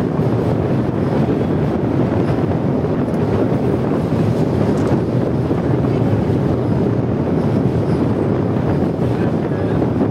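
Steady running noise of a train crossing a steel truss bridge, heard from inside the carriage through an open barred window, with wind on the microphone.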